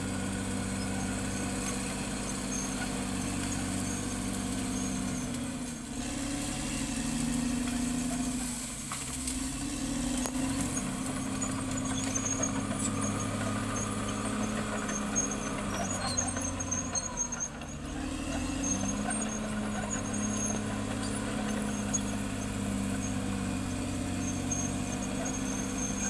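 Caterpillar D6R XL crawler bulldozer working, its diesel engine running under changing load: the engine note drops briefly about six seconds in and again near eighteen seconds, then picks back up. Intermittent high squeaks and clanks come from the steel tracks.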